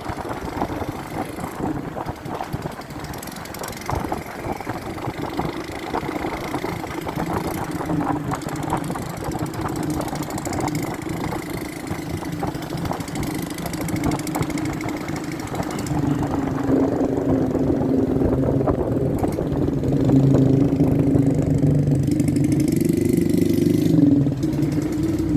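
Motorcycle engine running steadily while riding, with wind and road rush over it. Past the middle the engine note grows louder and more prominent as the rushing noise fades.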